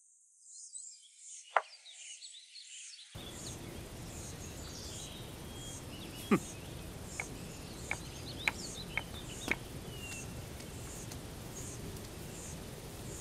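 Outdoor insect ambience: high chirps pulsing evenly, about three every two seconds, over a steady hiss that comes in about three seconds in. Between about six and ten seconds in there are half a dozen short, sharp chirps or clicks.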